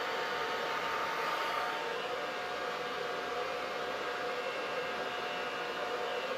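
Hair dryer running steadily: an even rush of air with a faint motor whine, which dips slightly about two seconds in.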